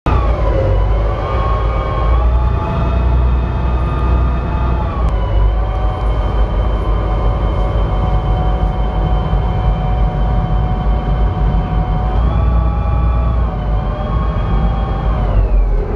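Engines of a high-speed passenger ferry heard from inside the cabin: a loud low rumble with a pitched whine over it. The whine steps up about two seconds in, drops around five seconds, rises again near twelve seconds and falls away near the end as the throttle is changed while the boat comes into harbour.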